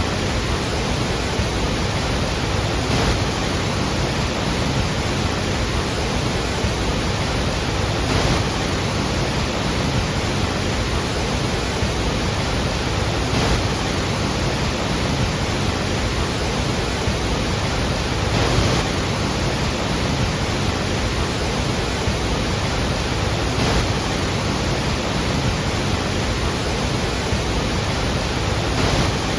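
Steady roar of the Iguazu Falls: a large mass of water falling and crashing, heard as an even wash of noise, with a faint brief swell about every five seconds.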